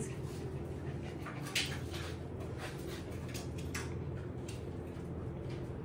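Puppies moving about at play, one tugging a blanket: scattered light clicks and rustles over a steady low hum.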